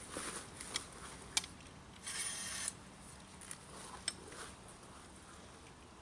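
Metal clicks and rattles of a cable catch pole being worked and its noose loosened to free a trapped opossum, with a short rasping burst about two seconds in.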